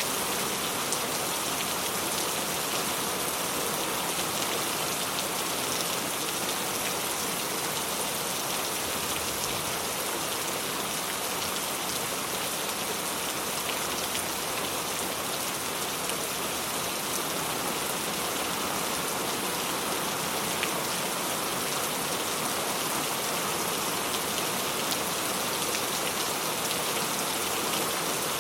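Steady rain: an even hiss with a fine patter of individual drops, unchanging throughout.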